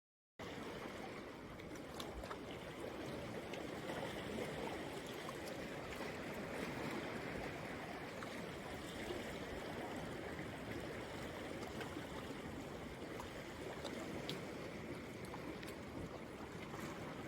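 Stream running: a steady rush of flowing water that starts abruptly about half a second in.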